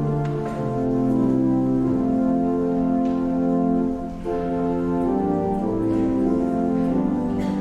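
Organ playing slow, held chords that change every second or so as a hymn or service music, with a brief dip in level about four seconds in.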